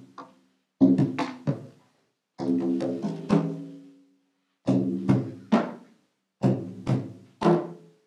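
Japanese taiko drums struck in four short phrases of three or four ringing beats each, with brief pauses between the phrases.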